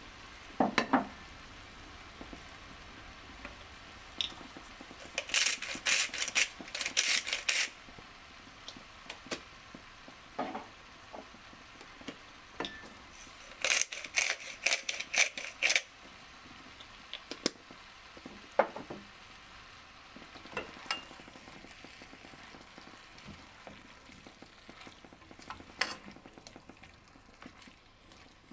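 Handheld spice grinder being twisted in two bursts of rapid gritty clicks, a few seconds each: one about five seconds in, the other around fourteen seconds. A few single light knocks fall between them.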